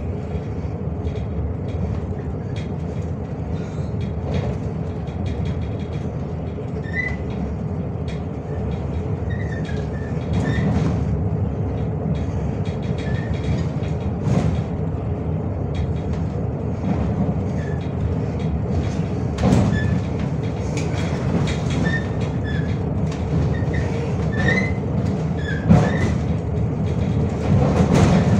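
A MAZ-105 city bus under way, heard from the passenger cabin: a steady engine and road rumble with a held whine, many short rattles and knocks from the body and fittings, and light squeaks.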